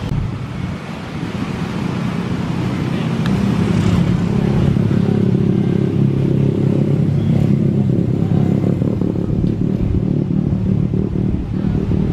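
Aircraft engine noise on an airport apron: a low, steady hum that builds over the first few seconds and then holds level.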